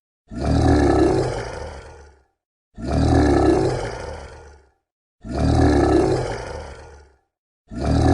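A monster roar sound effect, the same roar repeated in a loop. Three roars come about 2.5 seconds apart, each starting suddenly and fading out over about two seconds, and a fourth begins near the end.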